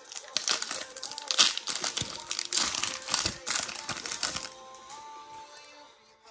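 Foil Pokémon booster pack wrapper being torn open and crinkled by hand: a dense, irregular run of crackling that dies away about four and a half seconds in, over soft background music.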